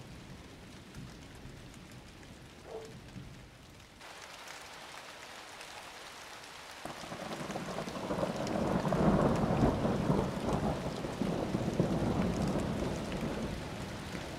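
Thunderstorm: steady rain hiss, with a long roll of thunder that swells about halfway through, rumbles loudest for several seconds, then dies away near the end.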